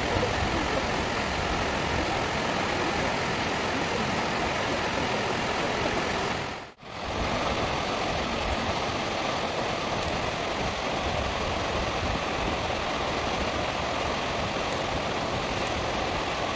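Water released over the crest spillway of Naruko Dam, a concrete arch dam, falling in a curtain down the dam face and splashing into the gorge below: a steady rushing roar. It fades out briefly and comes straight back about seven seconds in.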